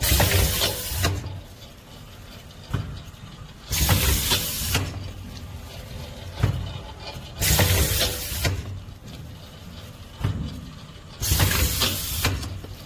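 Four bursts of hissing noise, each about a second long with a low rumble under it, repeating roughly every four seconds.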